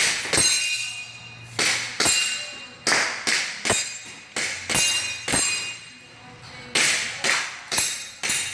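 Airsoft pistol shots striking steel plate targets: about a dozen sharp metallic clanks in quick succession, each ringing on briefly. There is a short pause about six seconds in before a few more hits.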